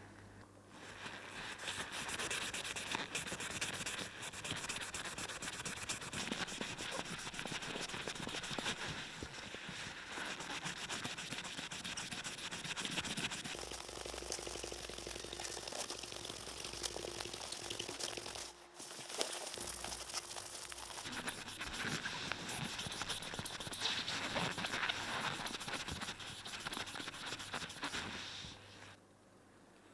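Dog tooth being rubbed and polished by hand, a steady rapid scrubbing scratch with a short break about two thirds of the way through. It stops shortly before the end.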